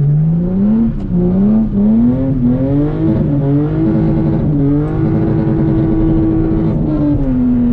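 Lexus IS300's inline-six engine heard from inside the cabin, accelerating: the revs climb, dip at gear changes about one and three seconds in, then hold steady at higher revs before falling near the end.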